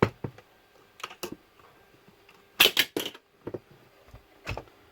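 Plastic clicks and knocks as a laptop's body and display are handled and worked. A tight cluster of sharp clicks comes a little before halfway, and a duller knock comes near the end.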